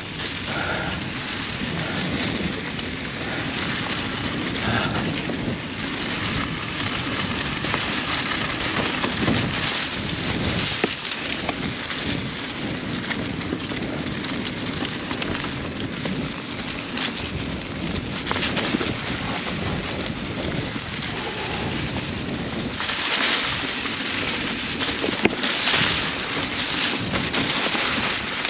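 Mountain bike rolling along a dirt singletrack: steady tyre and trail noise mixed with wind buffeting the microphone, with a couple of louder, hissier stretches a few seconds before the end.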